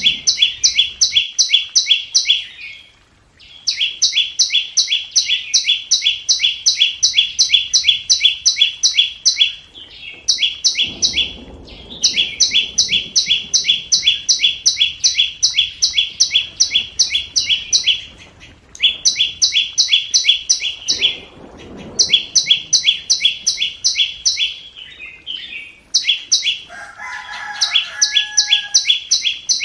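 Flowerpecker (chim sâu) giving sharp, high ticking calls, three or four a second, in runs of a few seconds with short breaks. A brief, lower whistled call comes in near the end.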